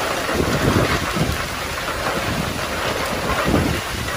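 Heavy storm downpour drumming down, with strong wind gusts buffeting the microphone in irregular low rumbles.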